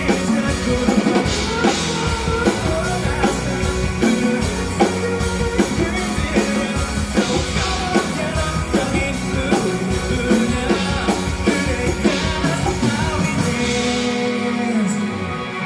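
Live rock band playing, with a drum kit keeping a steady beat under guitars and bass. The low bass end drops away near the end.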